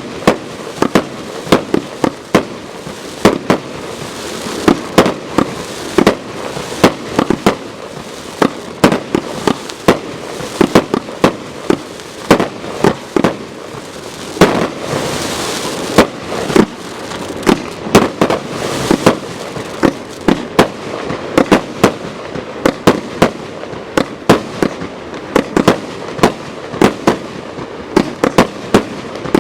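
Consumer fireworks battery (cake) firing continuously: sharp reports at about two to three a second over a constant hiss and crackle, with a denser hissing stretch about halfway through.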